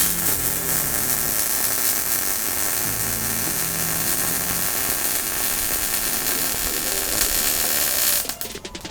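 Welding arc hissing and crackling steadily for about eight seconds, starting and stopping abruptly.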